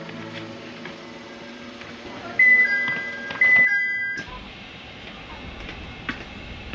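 Electronic two-note chime, a higher note falling to a lower one, sounded twice in the middle, over faint music and a steady background hum.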